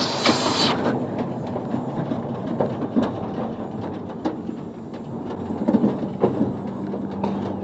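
Truck on the move: a steady low engine and road rumble with scattered knocks and rattles, and a steady engine hum coming in about two-thirds of the way through. A loud rush of noise cuts off suddenly less than a second in.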